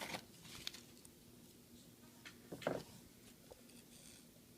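Quiet room with faint handling of small objects: a few light ticks and one louder soft knock a little after halfway.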